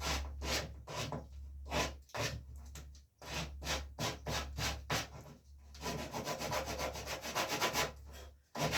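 Sandpaper rubbing back and forth by hand on the tip of a rawhide-backed wooden bow, about two or three strokes a second, quickening into fast short strokes about two thirds of the way through.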